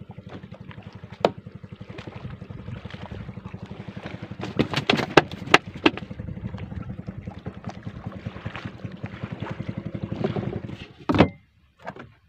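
Small boat engine puttering at a rapid, even beat, with a few sharp knocks about four to six seconds in. The engine sound cuts off abruptly near the end.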